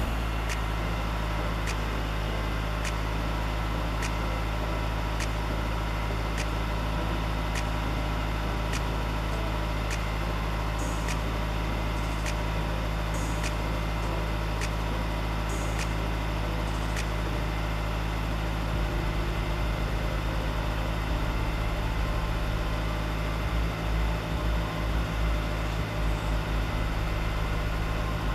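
Subaru Forester XT's turbocharged 2.0-litre flat-four idling steadily through an exhaust fitted with a WRX mid-pipe that has no middle resonator. Faint regular ticks come about once every three quarters of a second, and the idle wavers slightly near the end.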